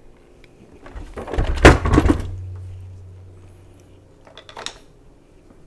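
Clattering knocks and a thud as the sewing machine and tools are handled on a workbench, loudest about a second and a half in and dying away, with a few light clicks near the end.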